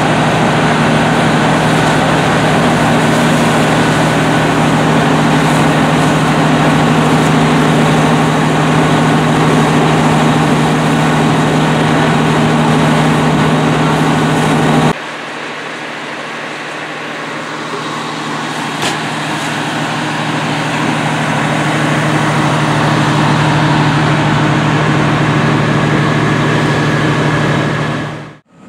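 Fire apparatus diesel engine running steadily, with the hiss of a hose stream over it. About halfway through it drops abruptly to a quieter steady engine drone, which fades out at the end.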